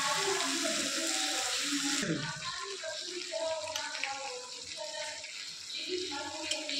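Potato-and-pea curry simmering in a kadhai, its watery gravy bubbling and popping in quick, irregular blips. A steady high hiss over it eases off about two seconds in.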